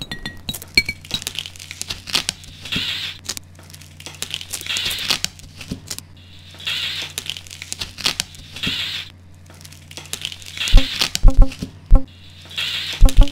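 Abstract sound-design soundtrack: repeated swells of crinkling, rustling noise about every two seconds over a low steady hum. A few deep, sharp thumps come near the end.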